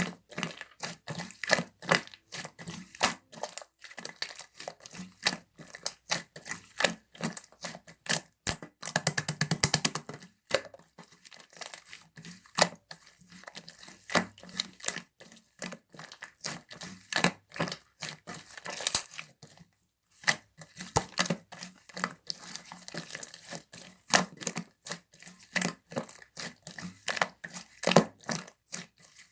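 Slime being pressed and squeezed by hand, giving quick sticky clicks and pops of trapped air, with a thicker run of crackling about nine seconds in.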